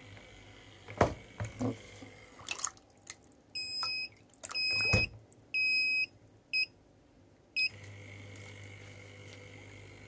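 A few handling knocks and clatters, then a run of electronic beeps from a digital device: three beeps lasting most of a second each, then two short ones.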